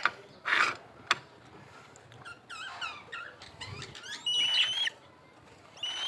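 Birds calling: a quick run of chirps, then two shrill squealing calls, each held at one pitch. Early on there is a brief rustle and one sharp click.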